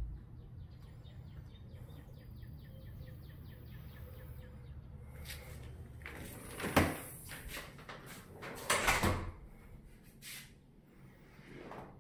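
An interior door being handled: a sharp knock about seven seconds in, a longer louder knock around nine seconds, then a couple of softer knocks.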